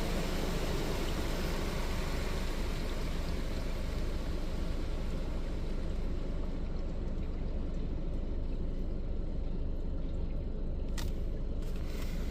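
Water from an automatic car wash spraying and streaming over the car, heard from inside the cabin. The high hiss fades after about halfway through, and there are a couple of short clicks near the end.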